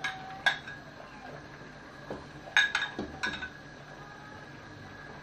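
Metal ladle clinking against a stainless-steel stockpot while soup is ladled out. There are two sharp knocks near the start and a cluster of four about halfway through, each with a brief metallic ring.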